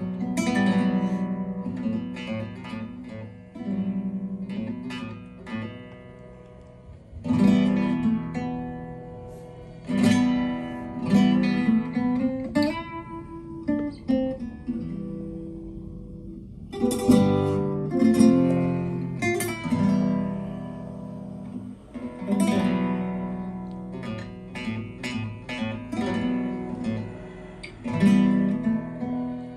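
Acoustic guitar music with flamenco-style strumming and plucked notes, played back through a pair of Tannoy Platinum B6 two-way bookshelf speakers.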